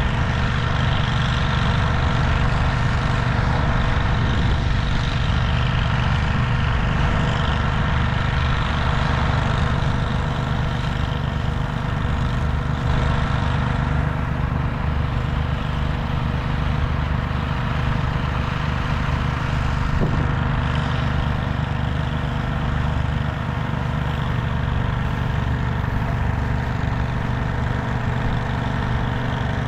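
A large engine idling steadily: a constant low hum with several steady higher tones above it, unchanging throughout.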